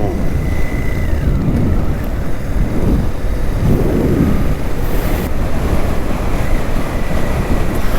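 Wind rushing and buffeting over the microphone on a moving motorcycle, steady and loud, with the Suzuki V-Strom 800DE's engine running beneath it.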